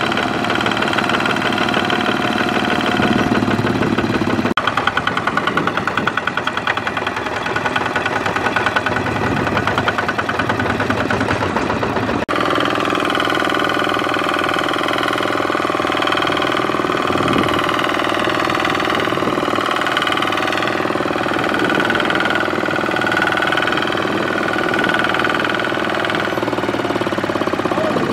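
Single-cylinder diesel engine of a two-wheel walking tractor running steadily under load as it labours to pull a laden trailer through sticky mud. The engine sound changes abruptly twice, about four and twelve seconds in.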